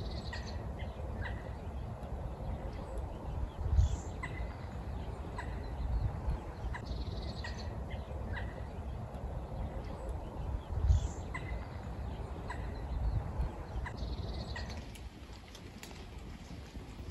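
Outdoor ambience: a bird calling in short bursts every three to four seconds over a steady low rumble, which drops away near the end.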